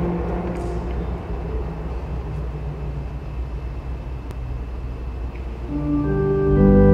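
Electronic keyboard playing sustained, organ-like chords: a held chord dies away, then a new chord comes in a little before the end and holds steady, over a low steady rumble. These are the opening bars of the hymn accompaniment, before any singing.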